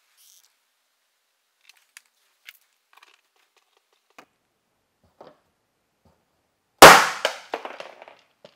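A glue tab snapping off a steel car fender as a paintless dent repair mini lifter pulls the dent: one sharp crack about seven seconds in, followed by a few light clicks and rattles. Before it, faint ticks of the tool being handled.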